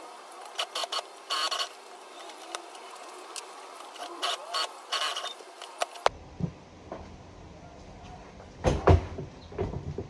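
Short rustles and clicks of cut fabric panels being handled and smoothed on a sewing table. After about six seconds come a few knocks and a loud thump, near nine seconds, from a plastic hard case being handled.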